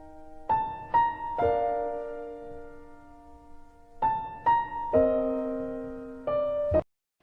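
Background music: a slow piano melody of single struck notes that ring and fade, three notes, a pause, three more, then one last note that cuts off suddenly near the end.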